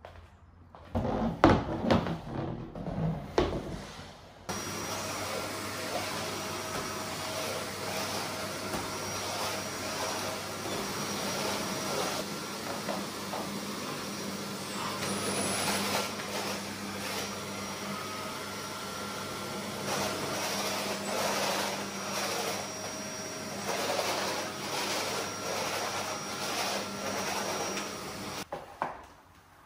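A few knocks and bumps as wooden-legged chairs are lifted and set down. A canister vacuum cleaner then switches on a few seconds in and runs steadily as its floor head is pushed over a hard floor. It switches off near the end.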